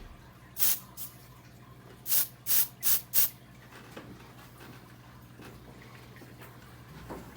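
Aerosol smoke-detector test spray hissing in six short bursts, four of them in quick succession about two seconds in: canned test smoke being puffed at a detector to set it into alarm. A low steady hum runs underneath.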